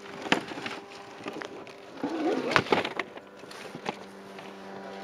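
Knocks and scraping rattles of fishing rods and tackle being handled in an inflatable boat: a sharp knock just after the start, a busy cluster of rattling around the middle and another knock near the end, over a steady low hum.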